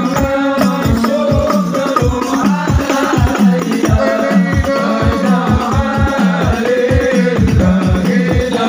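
Hadrah ensemble: frame drums and a low drum in a steady, even rhythm under group singing of Islamic devotional sholawat. The low drum strokes each fall in pitch.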